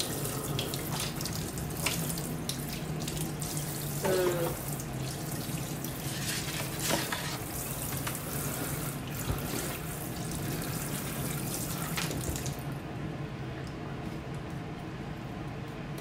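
Kitchen faucet running into a sink while a tray is rinsed under it, with a few light knocks and clatters. The water is turned off about three-quarters of the way through.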